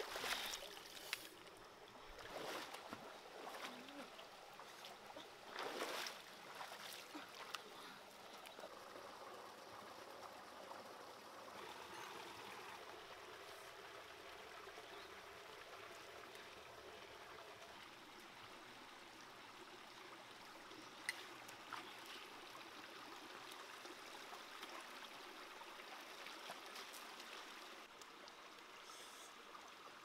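Shallow rocky stream flowing steadily. In the first few seconds a large catfish is splashed in the water, making several splashes.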